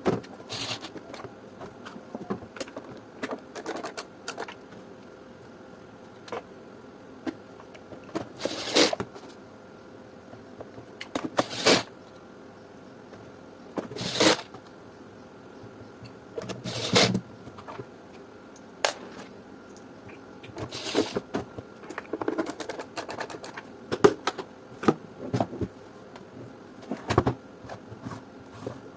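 Irregular clicks, taps and knocks of hard plastic appliance parts being handled and fitted together, a few sharper knocks standing out, as a garment steamer is worked on by hand.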